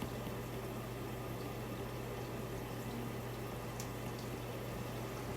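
Steady background hiss with a low electrical hum, and a couple of faint ticks about four seconds in.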